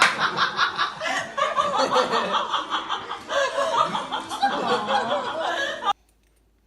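People laughing: a long run of pulsing chuckles and giggles that cuts off suddenly about six seconds in.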